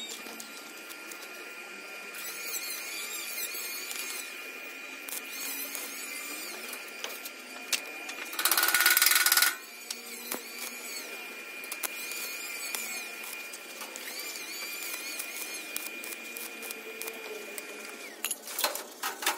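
A power drill runs in one short burst of about a second, near the middle, while the chain is being fixed to the steel frame post. A steady high whine carries on underneath until near the end.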